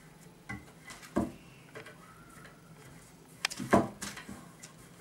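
Handling knocks and rubbing as a knitted sock is pulled over the metal-wire cage of a sock aid on a tabletop: several short sharp knocks, the loudest pair about three and a half seconds in.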